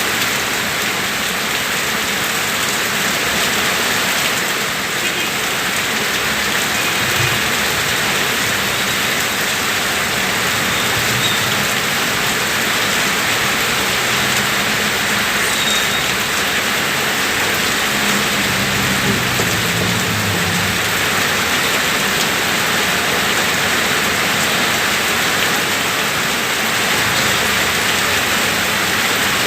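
Rain falling in a steady, even hiss during a storm.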